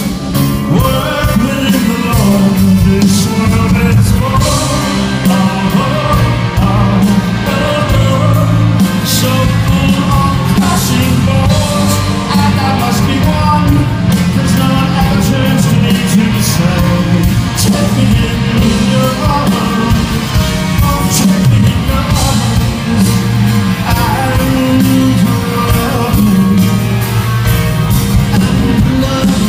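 Live rock band playing a song with a male lead vocal, heard from among the audience.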